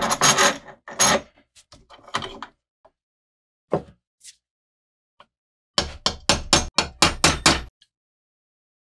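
Hand tools working on a rusty steel bayonet: a cluster of knocks and scrapes at the start, a few single taps, then a quick run of about nine strokes, some four or five a second, a little after halfway.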